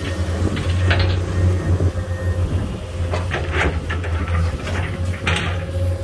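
Komatsu PC210 hydraulic excavator's diesel engine running steadily, with several short knocks and scrapes as the bucket works the sand pile, about one second in, around three seconds and again near the end.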